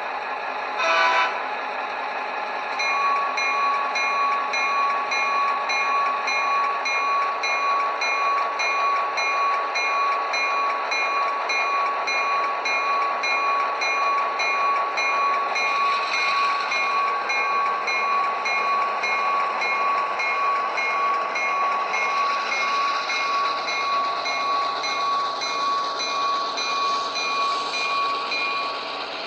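Sound decoder of an HO-scale Rapido GP38 diesel locomotive model playing through its small speaker: a short horn toot right at the start, then the locomotive bell ringing steadily over the diesel engine sound with a steady high whine, stopping just before the end.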